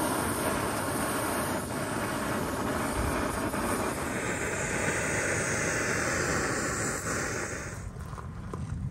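Backpacking gas-canister stove burning with a steady hiss under a metal pot of water, the hiss turning brighter and higher about four seconds in. Near the end the hiss stops suddenly, giving way to a quieter sound with a few light clicks as hot water is poured into a meal pouch.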